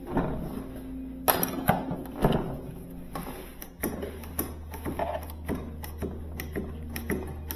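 Socket ratchet clicking in short repeated strokes as bolts are worked loose, after a few loud metallic knocks from handling the sheet-metal cabinet.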